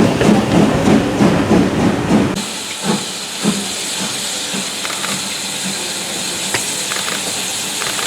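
A steam train running with a dense low rumble that stops abruptly about two seconds in. A steady hiss of escaping steam from a steam locomotive follows, with a few faint clicks.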